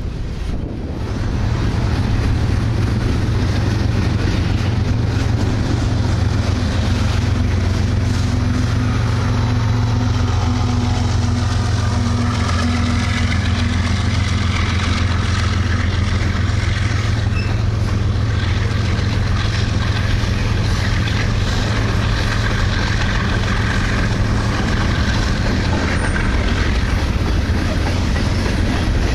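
Freight train passing close by: a Canadian Pacific diesel locomotive's engine running with a steady low tone over the rumble of freight cars rolling on the rails.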